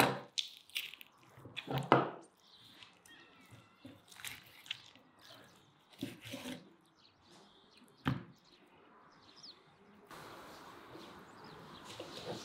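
A large kitchen knife working on a whole pike on a wooden cutting board: a series of knocks and short cutting scrapes of blade and fish on the board, the loudest at the start and about two seconds in, a cut through behind the head around six seconds in, and a sharp knock about eight seconds in. From about ten seconds a steadier background hiss sets in with faint bird chirps.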